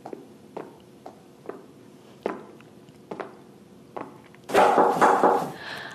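Footsteps on a hard floor, about two a second. About four and a half seconds in comes a loud, rushing, scraping noise lasting about a second as a glass office door is opened, the loudest sound here.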